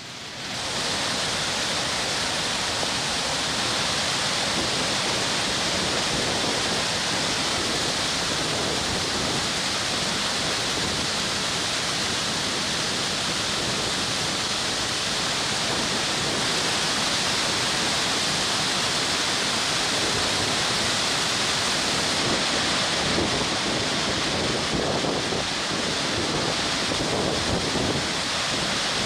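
Water pouring through a dam's open crest gates and down the spillway: a steady rush of falling water released from the reservoir, starting about half a second in.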